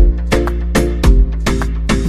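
Background music with a steady beat: quick percussive hits, about four or five a second, over a deep bass pulse about once a second.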